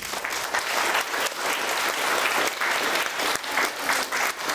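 Audience applauding, dense and sustained clapping that starts right away.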